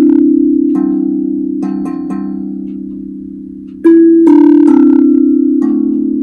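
Steel tongue drum struck with a pair of mallets, single notes picked out slowly and unevenly, each ringing on and overlapping the next. After a pause in the middle comes the loudest strike, followed by three more notes.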